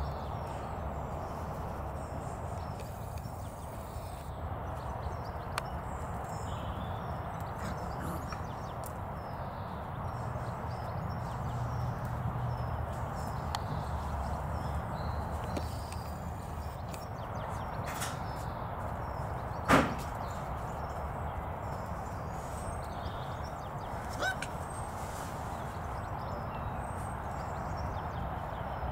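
Light pattering of German Shepherd puppies' paws and claws on stone paving slabs over a steady outdoor background noise. One sharp, short, loud knock or yelp about twenty seconds in, and a smaller one a few seconds later.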